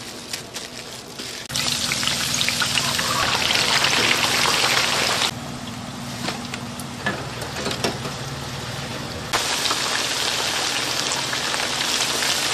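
Food sizzling as it fries, a dense steady hiss over a low hum, broken into segments that stop and start abruptly several times.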